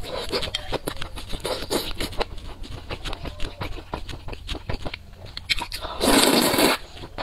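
Close-miked wet eating sounds: chewing with many small smacking clicks, then a loud slurp of noodles lasting under a second, about six seconds in.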